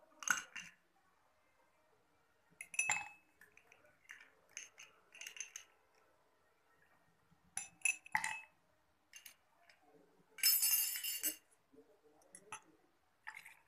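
Ice cubes and a metal spoon clinking against glass as ice is spooned out of a glass bowl, in scattered separate clinks, with a burst of rapid clinking lasting about a second near the end.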